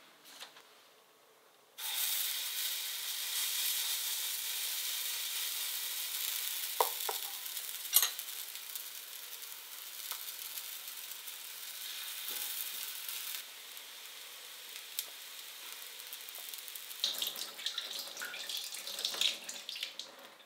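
Rice-flour pancake batter sizzling in hot oil in a stainless frying pan. The sizzle starts suddenly about two seconds in, with a couple of sharp clicks partway through, then drops to a quieter sizzle. Irregular handling sounds near the end.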